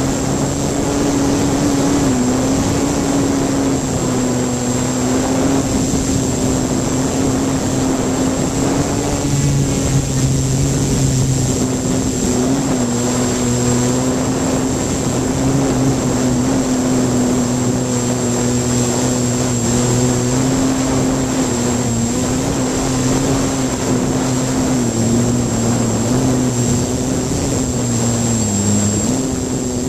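Electric motors and propellers of a 3DR hexacopter in flight, heard from a camera taped to one of its arms: a steady buzzing drone whose pitch wavers slightly as the motors adjust, with a thin high whine above it. The pitch dips briefly near the end.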